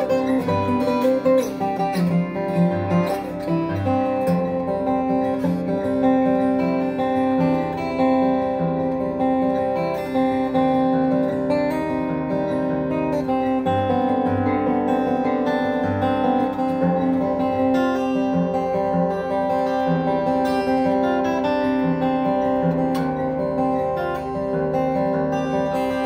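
Solo 1994 Taylor 420-R steel-string acoustic guitar played fingerstyle: an instrumental piece with ringing melody notes over recurring bass notes.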